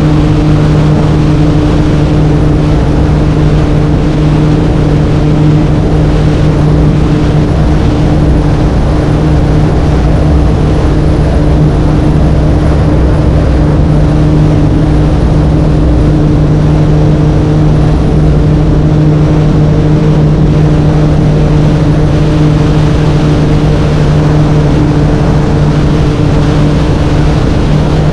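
20 ft Crownline runabout's engine running steadily at speed, with a constant low drone over a wash of wind and water noise.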